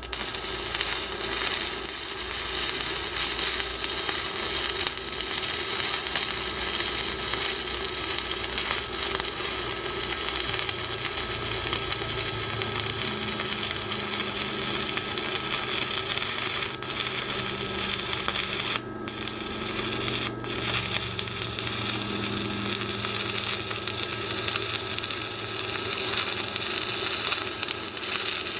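Welding arc crackling and sizzling steadily as a bead is run, the steady sound of consistent welder power, with two brief breaks in the arc a little past the middle.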